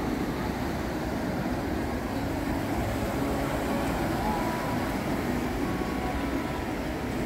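Steady low rumble of outdoor ambience, an even noise with no distinct events.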